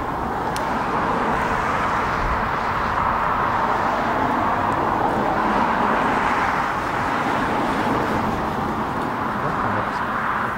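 Steady roar of a NATO E-3A Sentry's four turbofan engines as the aircraft comes in to land, swelling about halfway through, mixed with road traffic noise.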